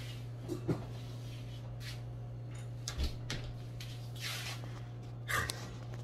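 A steady low hum in a small room, with a few soft knocks and one breathy rustle about four seconds in.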